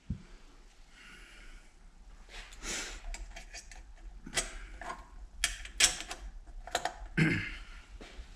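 Thin steel spring leaves of a Jaguar E-Type trunk hinge spring being worked onto a metal jig: light scraping, then several sharp metallic clicks and knocks in the second half as a leaf is forced into place.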